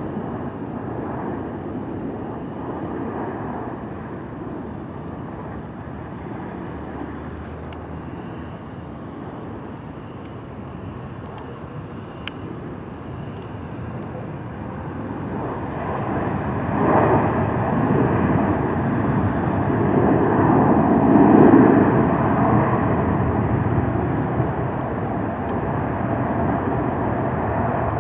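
Boeing 787-9 airliner's Rolls-Royce Trent 1000 jet engines on landing: a steady jet rumble that dips a little during the flare and touchdown, then swells to its loudest a few seconds later during the rollout as reverse thrust is applied, before easing off.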